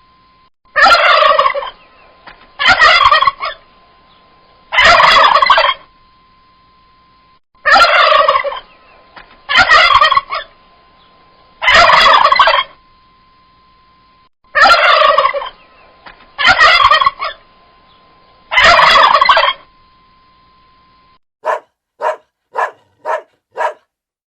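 Male turkey gobbling: nine loud, rattling gobbles about a second long, each roughly two seconds apart, with a faint steady tone between them. Near the end come five short, sharp calls in quick succession.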